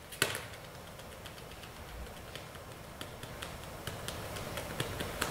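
Irregular small clicks and crackles: one sharper click just after the start, then scattered light ticks that come more often toward the end.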